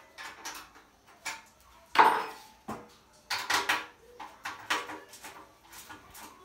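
Metal clinks and scrapes as nuts and bolts are fitted to the metal leg of an industrial sewing machine stand, with a sharp knock about two seconds in.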